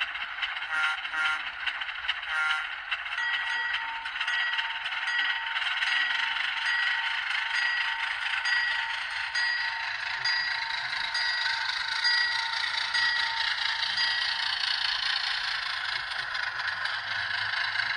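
Sound decoder of an HO-scale model diesel switcher: diesel engine running through the model's small speaker as the locomotive backs up. The bell rings about once a second for most of the time, then stops.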